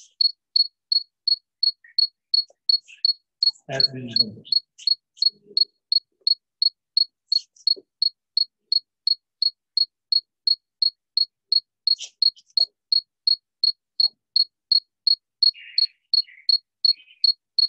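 A high-pitched chirp repeating evenly, about two and a half times a second, each chirp short and at the same pitch and loudness.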